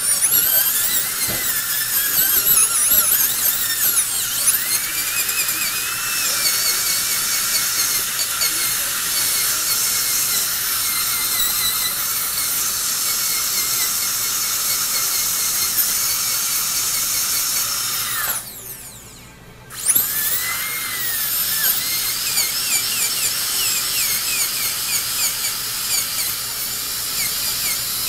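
Dental drill whining, its pitch wavering as it grinds down a high spot on the bite, shown by a blue mark, to even the bite. It stops for about a second about two-thirds of the way through, then starts again.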